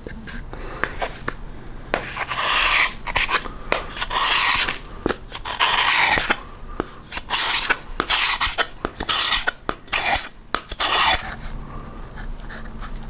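Plywood being worked by hand with an abrasive tool, in uneven strokes of about half a second with short clicks between them, that stop about two seconds before the end.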